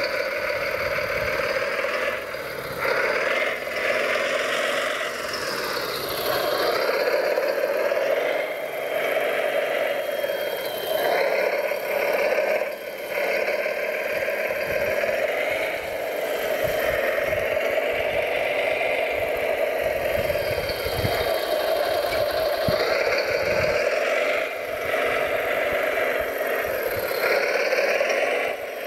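Electric motors of radio-controlled model construction machines whining, the pitch rising and falling as they speed up and slow down, with gravel and stones rattling and clattering now and then.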